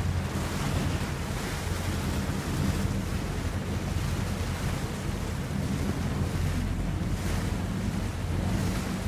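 Wind buffeting the microphone over the steady low drone of a boat's engine, with water rushing past as the boat moves.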